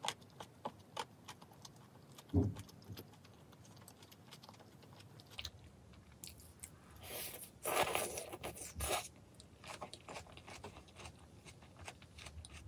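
Close-miked chewing and biting of a spicy chicken-feet meal: many small wet mouth clicks and crunches, a soft thump about two seconds in, and a louder stretch of crunching a little past halfway.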